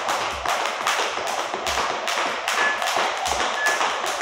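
Skipping ropes slapping the gym floor in a quick, even rhythm of sharp slaps, several a second, with the soft thud of feet landing between them.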